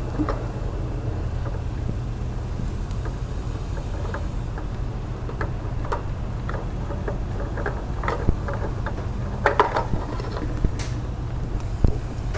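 Spin-on oil filter being unscrewed by hand and pulled off the oil cooler housing: scattered light clicks and knocks over a steady low hum, with a cluster of louder knocks about eight to ten seconds in and another near the end.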